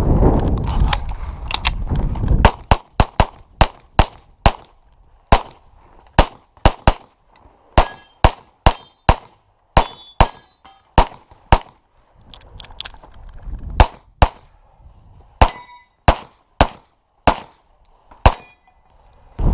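A handgun fired rapidly in a practical shooting stage: about thirty sharp shots, many in quick pairs, with a brief pause about twelve seconds in before the shooting resumes. A steady rushing noise fills the first two seconds or so.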